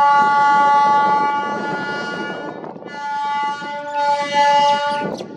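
DEMU train's horn sounding two long blasts, the first already going at the start and stopping about two and a half seconds in, the second from about three seconds to five seconds, over the running noise of the train.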